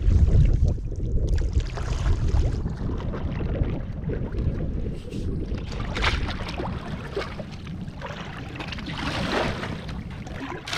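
Wind buffeting the microphone over water lapping at an Old Town canoe as it is paddled in. In the second half the bow runs aground and the hull slides over mud and twigs with bursts of scraping.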